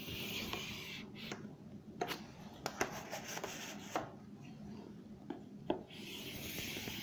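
A pen scratching across a writing surface in long drawn strokes, with light taps and clicks between the strokes, as lines of a geometry figure are drawn. The strokes come in three stretches: at the start, in the middle and near the end.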